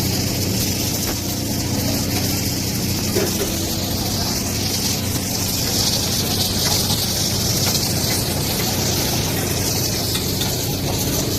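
Chicken karahi frying in oil in a karahi wok, a steady sizzling hiss, over a low steady hum.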